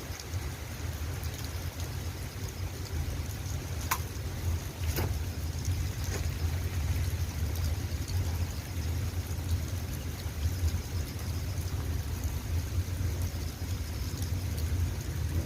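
Steady rain falling, with a few sharper drips about four to six seconds in, over a constant low rumble.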